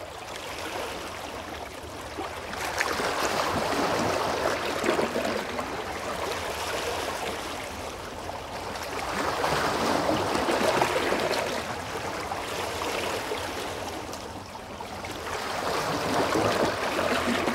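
Small sea waves washing up and draining back over a pebble beach, swelling and fading in slow surges about every six seconds.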